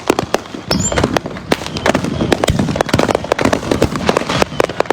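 A dense barrage of consumer fireworks: many sharp bangs and crackles overlapping at irregular intervals over a continuous rumble, which grows fuller about a second in. A brief whistle sounds at the same point.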